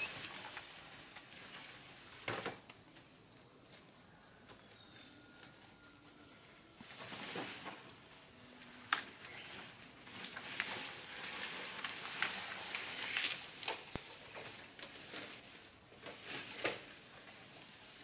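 Steady high-pitched drone of forest insects, shifting slightly in pitch near the start and again near the end, with scattered crackles and rustles in the leaves and undergrowth that come thickest in the second half.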